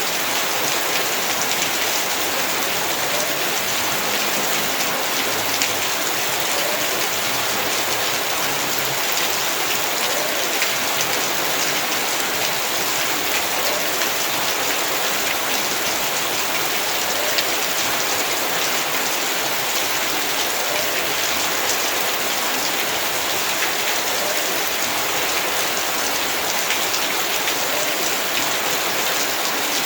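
Heavy rain falling steadily, a dense even hiss of drops with fine scattered patter.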